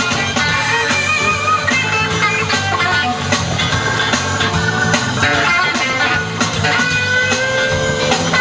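Music soundtrack led by guitar, with held notes, at a steady level.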